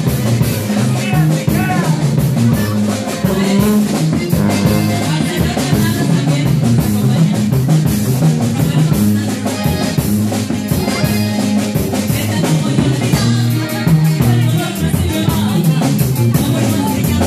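Live norteño-style band music: a woman singing into a microphone at times, over a tuba bass line, accordion, guitar and drums keeping a steady beat.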